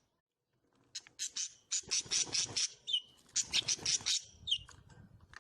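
Small cage birds calling in runs of quick, harsh chattering notes, with a couple of short clear whistled notes between them. The calls start after about a second of near silence.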